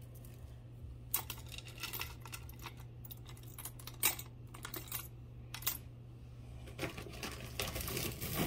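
Costume jewelry being handled: light, scattered clicks and clinks of plastic beads and metal chains, growing into a busier clatter near the end.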